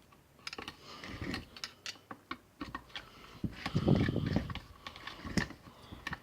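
Scattered light clicks and clatter of objects being handled, irregular and uneven, with a louder stretch of rustling and knocking about four seconds in.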